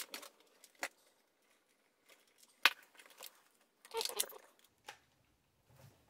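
A few sharp plastic clicks and knocks as a Turbo Power Twin Turbo 3200 hair dryer is handled on the bench, the loudest about two and a half seconds in, with a short rustle around four seconds in. The dryer's motor is not running.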